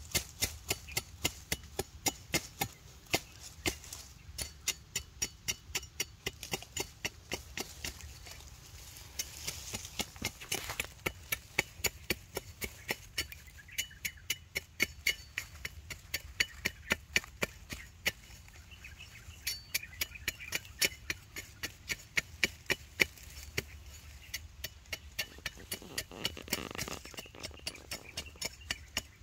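A hand tool striking over and over in a quick run of sharp chopping knocks, about three to four a second, pausing briefly a few times.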